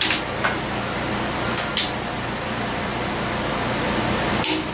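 A click-type torque wrench gives a few sharp clicks as Ford 460 big-block head bolts are pulled down on the first 70 ft-lb pass, over a steady shop hum.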